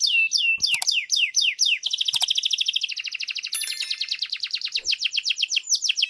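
Canary singing: a run of separate downward-sweeping whistled notes, then, about two seconds in, a long rapid trill of quickly repeated notes that stops suddenly near the end.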